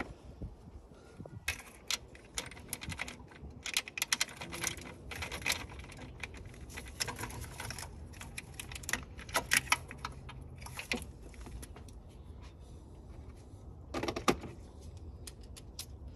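Light metallic clicks and rattles of hand tools and small metal parts being handled, coming in irregular clusters with a quieter stretch about two thirds of the way through.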